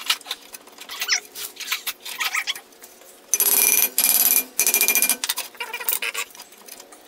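Seized, rusted rear brake drum on a 1987 VW Vanagon being twisted, rocked and struck with a hammer to break it free: scattered metal knocks and clicks, with two loud stretches of scraping and squealing metal around the middle. The drum is frozen onto the hub.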